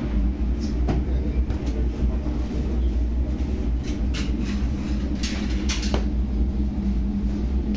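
Steady low mechanical rumble with a faint hum running under it, with a few short clattering noises about halfway through.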